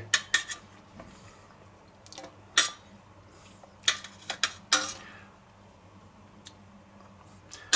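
Metal kitchen tongs clinking against a stainless steel mixing bowl as a slice of toast is dipped in egg mixture: a handful of separate sharp clinks, the loudest a little after two and a half seconds in and a cluster around four to five seconds in.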